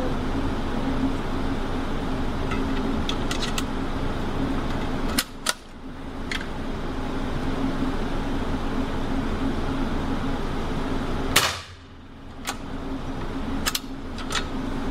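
Lee Enfield No.4 Mk.1 rifle firing a .32 H&R round through a .303 chamber adapter. Two sharp shots go off, one about five seconds in and a louder one about eleven seconds in, with a ringing echo. Light metallic clicks of the bolt being worked and the rifle reloaded come between and after the shots.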